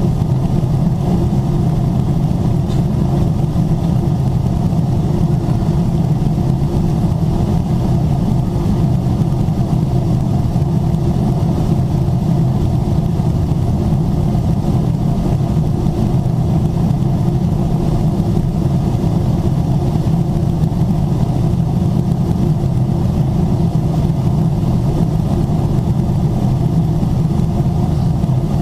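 Steady cabin noise inside a Boeing 777-300ER in level flight: the low drone of its GE90 turbofan engines mixed with the rush of air past the fuselage, unchanging throughout.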